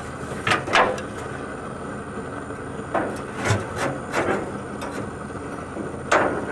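Steel cooking grate inside a barbecue smoker being shifted with a metal hook tool: several metal scrapes and knocks, the strongest near the start and just before the end.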